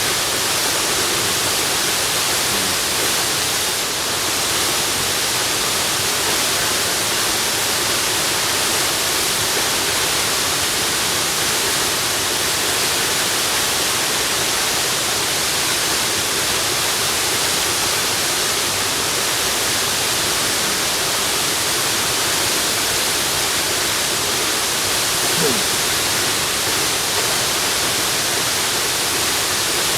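Waterfall: falling water making a steady, unbroken rush, heaviest in the hiss range.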